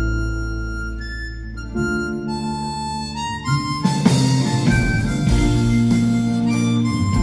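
Harmonica playing long held notes in a song, over a low accompaniment; the music turns busier and fuller about four seconds in.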